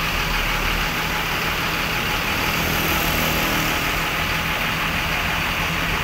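Road traffic going by, with a steady low engine hum underneath.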